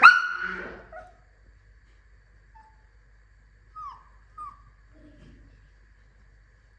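A cat's meow, loud and high-pitched, right at the start and lasting under a second, then two faint short falling mews about four seconds in.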